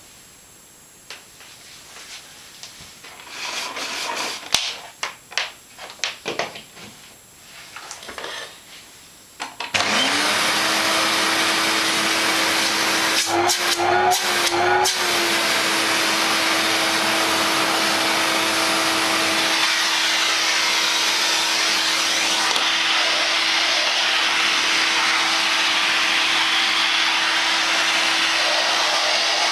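A scatter of clicks and knocks. About ten seconds in, an Elektro-Helios U318 canister vacuum's 900 W motor switches on and spins up to a loud, steady whine over a rushing hiss. A few seconds later the whine wavers briefly with some sharp clicks while the hose and wand are handled, then runs steady again.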